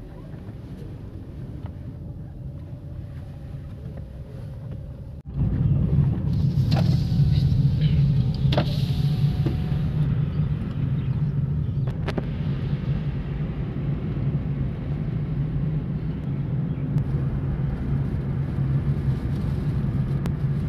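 Car running and moving: steady low engine and road rumble heard from inside the cabin. It jumps suddenly louder about five seconds in, with a few light clicks over it.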